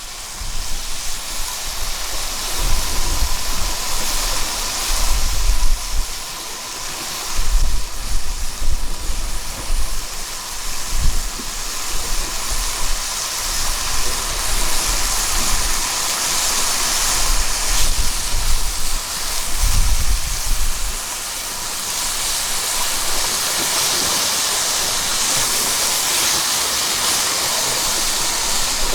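Wind gusting on the microphone in irregular low rumbles over a steady rushing noise like running water or surf; the gusts ease off after about 21 seconds, leaving the steady rush.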